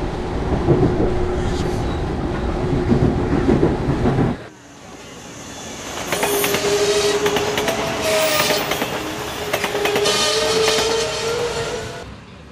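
Commuter train: first the steady rumble heard inside a moving car. After about four seconds it cuts to a train passing through a station, its wheels clattering rapidly over the rail joints under a steady high tone, then fading away near the end.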